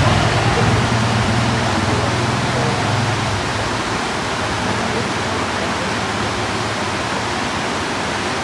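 Steady rush of flowing stream water. A low motor hum fades out about three seconds in.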